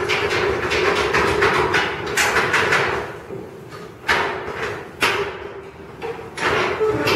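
Sudden metallic bangs and clanks, five or six about a second or two apart, each with a short echoing tail, from a stopped subway refuse train and its dump cars, over a steady hum.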